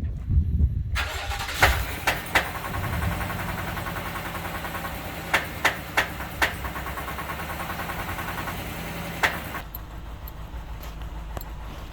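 An engine starts and runs at idle, with several sharp pops at uneven intervals, the popping noise that is the subject. A loud rushing hiss runs over it from about a second in and cuts off suddenly near the end, leaving the engine idling.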